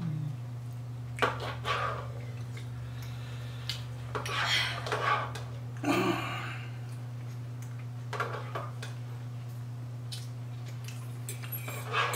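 Table eating sounds: forks clinking and scraping on plates and chewing, in scattered short bits over a steady low hum. A sip from a soda can comes about halfway through.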